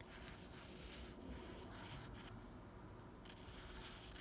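Faint scratching of a drawing tool stroking across paper, stopping for about a second a little past halfway, then starting again.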